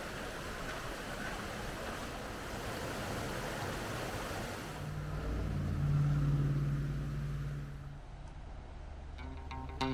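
A rushing noise, then a low motor-vehicle engine hum that swells about six seconds in and fades away, as of a vehicle passing. Guitar music starts right at the end.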